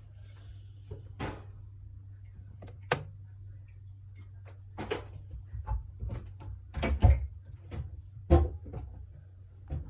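Domestic cat snoring in its sleep, a short rattly snore every second or two over a steady low hum.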